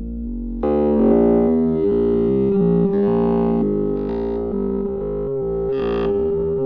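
Synthesizer keyboard music: a steady held note under shifting chords, growing fuller and louder a little over half a second in.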